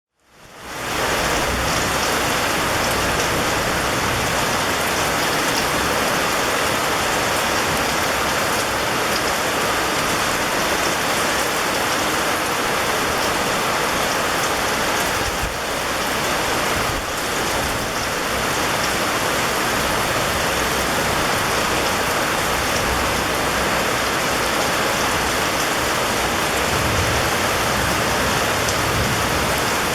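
Steady heavy rain falling on a surface, a dense even hiss, fading in over the first second.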